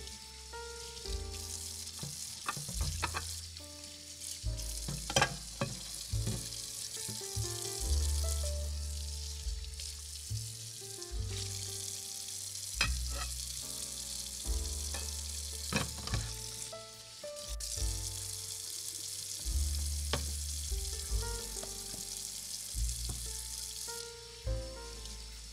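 Background instrumental music with a slow bass line and short melody notes, over a steady high hiss. Scattered light clicks and taps of small utensils against dishes and a little steel pan.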